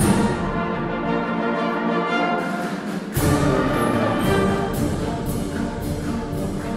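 Orchestral music with brass, starting abruptly at full level. About three seconds in, the full orchestra comes in with deep low notes and percussion strokes about twice a second.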